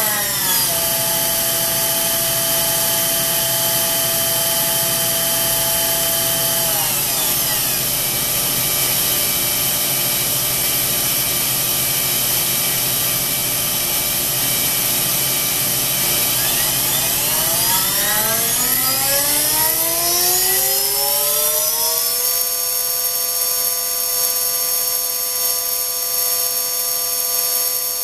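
High-speed electric motor on a test bench, running at tens of thousands of rpm with a steady high whine over an airy hiss. The pitch shifts down around 7 seconds in, then glides upward from about 17 to 22 seconds and holds steady as the motor changes speed.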